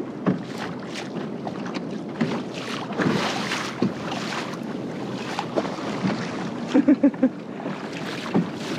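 Water rushing and splashing along the hull of a pedal-driven kayak moving across open sea, with wind on the microphone and scattered light knocks. About seven seconds in there is a quick run of four short pitched sounds.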